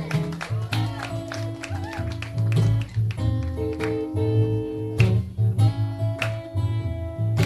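Eastman E10OM acoustic guitar playing a Delta blues intro, with a steady picked bass-note rhythm under strummed chords.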